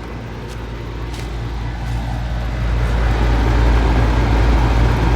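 Old Bard heat pump, probably from the 1980s, running in cool mode: a steady low compressor hum under the rushing air of the condenser fan. It grows louder about two to three seconds in.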